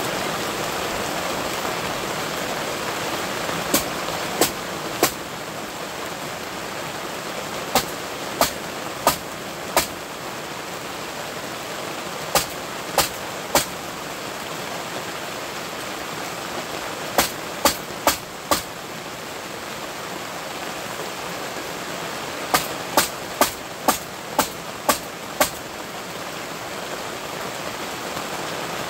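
Runs of sharp clicks, three to seven at a time at about two a second, repeated five times over a steady rushing noise.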